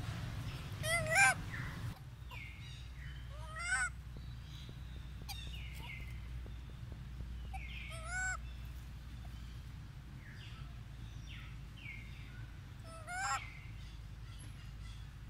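Rhesus macaque giving short pitched calls in quick runs of three or four notes, four times: about a second in, near four seconds, about eight seconds and about thirteen seconds in. The first run is the loudest. Fainter, falling chirps come between them.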